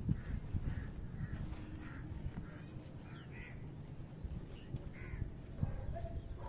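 A crow cawing in a run of about ten short calls, ending about five seconds in, over a low rumbling noise.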